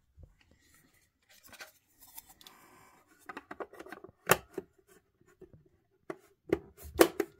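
Plastic battery compartment cover of a Sony CF-210Y portable radio cassette recorder being slid into place by hand. Light scraping and rubbing, then several sharp plastic clicks in the second half as it is pushed home.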